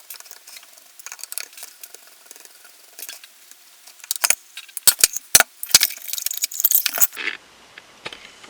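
Hand-tool work on an airsoft MP5: light metallic clicks and small rattles as the bottom screws are taken out and the lower receiver is worked free. A run of sharper clicks and knocks comes in the second half.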